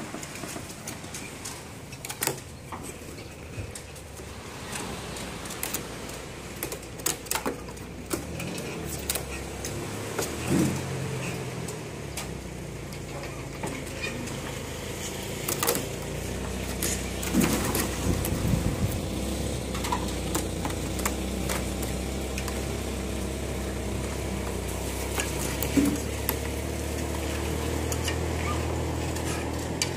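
A steady mechanical hum, with sharp clicks and clatters scattered through it and a few short squeaky glides. The hum grows a little louder about a third of the way in.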